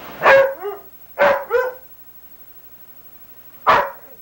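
A dog barking in short sharp barks: two quick barks, two more about a second later, then a single bark near the end.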